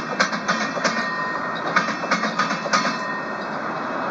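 A LEGO passenger train rolling over plastic track: a steady whir from its motor and wheels, with a quick run of sharp clicks over the first three seconds as the wheels pass the track joints.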